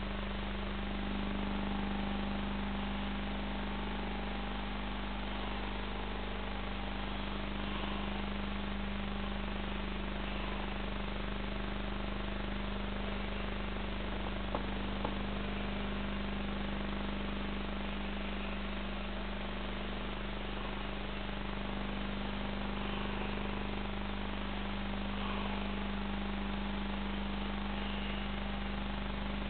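Aquarium air pump running a sponge filter, a steady electric hum with a constant hiss; two small clicks about halfway through.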